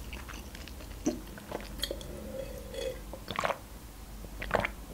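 Soft, close-miked chewing and wet mouth clicks of someone eating McDonald's chicken nuggets, then a sip from a glass near the end.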